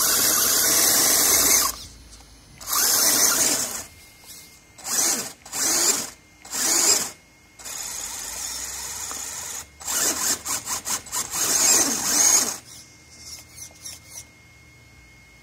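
RC crawler's electric motor and drivetrain whining in repeated throttle bursts while the flipped truck's wheels spin, trying to roll it back over. There are several long bursts, a steadier lower-speed stretch, then a quick run of short blips before it dies down to small twitches near the end.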